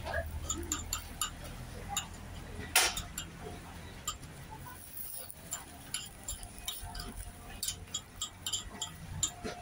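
Thin metal pick tapping and clicking against a metal wheel-cake (imagawayaki) griddle and cakes as the cakes are worked: light irregular clinks a few times a second, with one louder knock about three seconds in.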